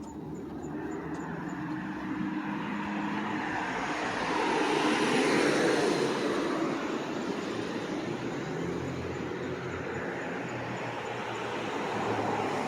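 A passing vehicle, its noise swelling slowly to a peak about halfway through and fading, with a smaller swell near the end.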